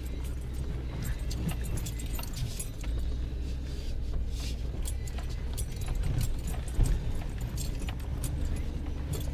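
Off-road vehicle driving over rough ground: a steady low engine and road rumble with constant jangling, rattling clatter.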